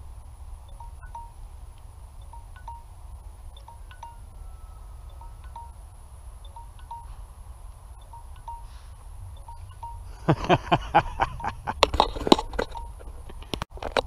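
RC transmitter's timer alarm sounding as short, faint high beeps, a few a second, signalling that the set flight time is up. About ten seconds in come loud rustles and thumps of footsteps through long grass.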